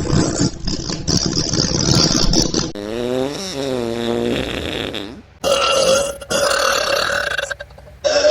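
Comic burp sound effects one after another: a rough, rumbling burp, then a long burp whose pitch wavers up and down, then another burp after a short break.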